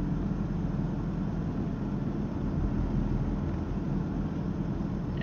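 A vehicle cruising along an expressway: steady engine and tyre rumble with no change in speed.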